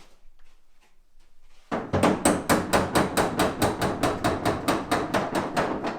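Rapid wooden knocking, about five sharp knocks a second, starting a couple of seconds in and going on for about four seconds: the top of an antique pine wardrobe being knocked and settled down into place on its carcass.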